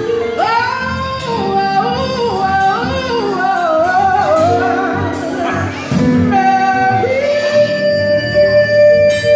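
A woman singing gospel-style vocal runs into a microphone over sustained band chords, her voice sliding quickly up and down in pitch, then holding one long note from about seven seconds in.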